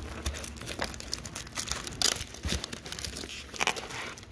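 Plastic wrapping crinkling and rustling, with foam and cardboard packing scraping, as a car stereo head unit is lifted out of its box. The crackling comes in irregular bursts, with sharper crinkles about two seconds in and again near the end.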